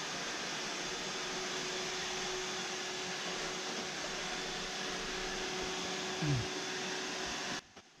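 iRobot Roomba 694 robot vacuum running: a steady, even whooshing noise from its motor and brush, with a short falling tone about six seconds in. The sound cuts off suddenly just before the end.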